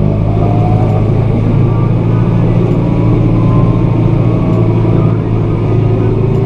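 A vehicle engine running steadily with a deep, even hum, a few faint higher tones slowly rising in pitch.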